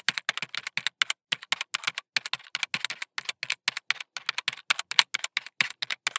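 Fast, irregular computer-keyboard typing clicks, several keystrokes a second, heard as a sound effect under a title animation.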